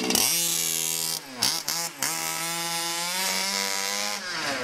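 Radio-controlled car driving, its motor running with a steady buzzing note. The note drops and recovers sharply twice near the middle, holds steady, then falls away near the end.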